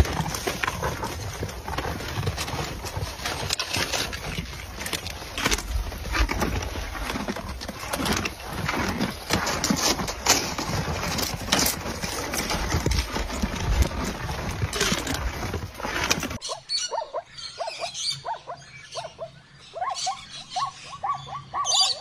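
Rough, noisy ambience around a herd of shaggy camels in snow, full of short crunches and knocks. About sixteen seconds in it cuts to zebras calling: a run of short, repeated barking calls.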